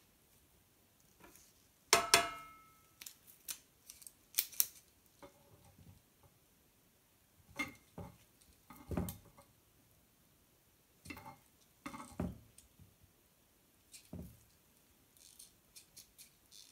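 Metal kitchen tongs with silicone-tipped ends clacking and clicking as they are picked up and worked open and shut, with scattered light taps in between. The loudest clatter, with a brief metallic ring, comes about two seconds in.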